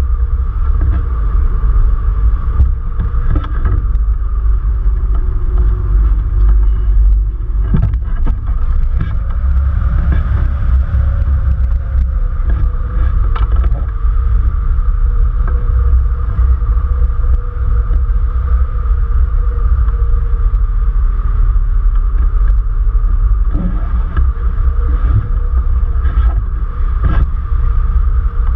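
Airflow buffeting a wing-mounted camera's microphone on a tandem hang glider in flight: a loud, steady low rumble, with a faint steady whistle above it.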